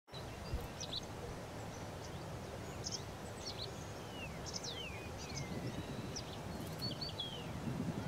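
Several small birds calling, short chirps and quick gliding whistles scattered throughout, over a steady low rumble of outdoor background noise.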